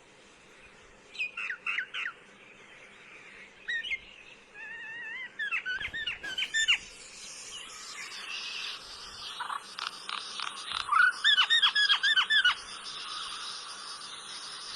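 Myna calling in bursts of short, quickly repeated chirps and whistled notes, the last and loudest burst near the end, over a steady hiss.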